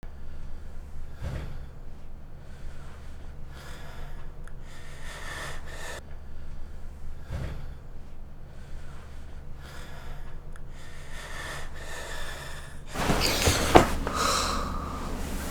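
A person breathing heavily in and out, over a low steady hum, with a louder gasping breath about thirteen seconds in.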